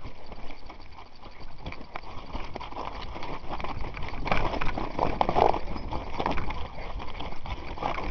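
Mountain bike clattering fast down a rocky trail, with rapid irregular knocks and rattles as the tyres and frame hit loose stones, getting louder about halfway through. Wind buffets the microphone underneath.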